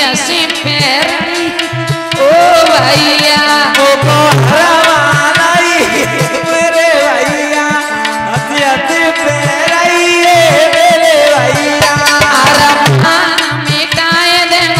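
Indian folk wedding (bhat) song, instrumental passage: a hand drum keeps a steady beat under a wavering, ornamented melody.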